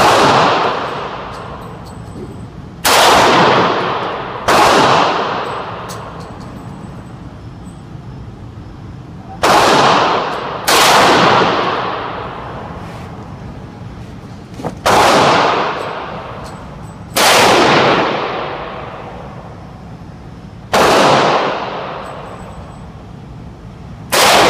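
VEPR 12 semi-automatic 12-gauge shotgun firing 2 3/4" buckshot, about nine shots at uneven intervals of one to four seconds. Each blast rings out in a long echoing decay off the walls of an indoor range.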